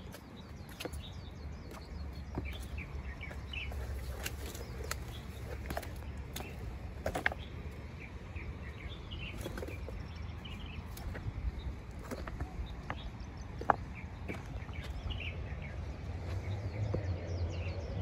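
Wild birds chirping in short, scattered calls over a steady low rumble, with a few sharp clicks, the loudest about seven and fourteen seconds in.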